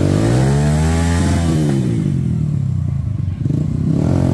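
Yamaha WR155 trail bike's single-cylinder four-stroke engine under throttle while riding: the revs climb and ease off, run unevenly at low revs in the middle with a brief dip, then climb again near the end.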